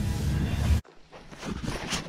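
A low, steady rumble that cuts off abruptly under a second in. Then faint rustling as the camera brushes against camouflage clothing.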